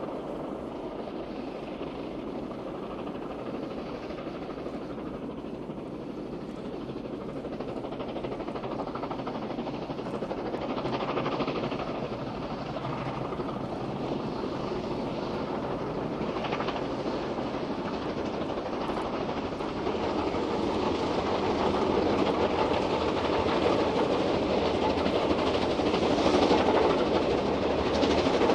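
Two QJ-class steam locomotives double-heading a freight train, the sound of the train growing steadily louder as it draws nearer.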